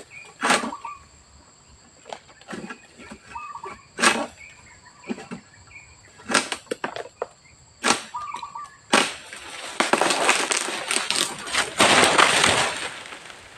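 Oil palm harvesting: a harvesting pole sickle strikes palm fronds with sharp chopping blows a few seconds apart. Then, from about nine seconds in, there is a long loud rustle as cut fronds fall through the leaves.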